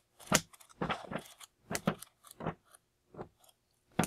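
Pages of a thick paperback book being turned by hand one after another, each turn a short sharp paper flick, about eight over four seconds at an uneven pace.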